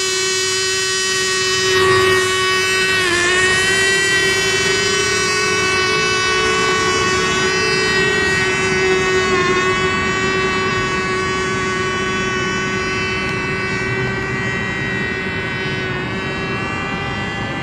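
Radio-controlled racing boats running at speed: a loud, high, steady whine, with more than one pitch overlapping at times and brief dips in pitch a few times.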